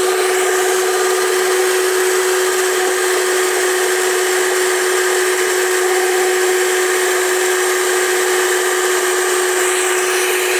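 Electric hand mixer running steadily, its twin beaters whipping egg whites into foam in a bowl: a constant motor whine of unchanging pitch over a hiss of beaters churning the froth.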